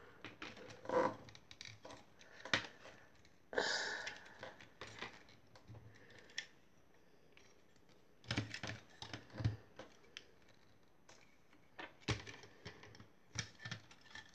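Plastic clicks, snaps and scrapes of a Transformers Siege Thundercracker action figure's joints and parts being folded and moved by hand, coming irregularly: a short scraping rustle about three and a half seconds in and bunches of clicks in the second half.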